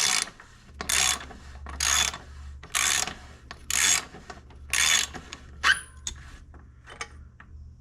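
Ratchet wrench turning a bottom bracket tool to unscrew the drive-side cup of a square-taper cartridge bottom bracket. The ratchet clicks in even strokes about once a second, then gives one sharp click and a few lighter clicks near the end.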